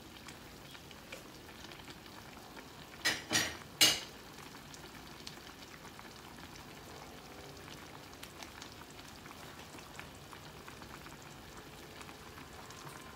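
Pot of chicken noodle soup simmering on the stove: a steady soft bubbling hiss with small pops. About three seconds in come three sharp knocks, the last the loudest.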